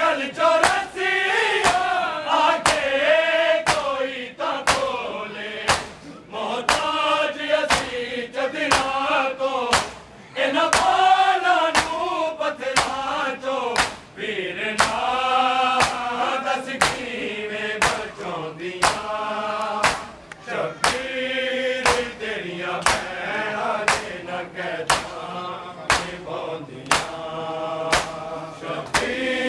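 Male voices chanting a Punjabi noha (mourning lament), with a crowd of men singing along. Hands slap bare chests in matam about once a second, keeping the beat.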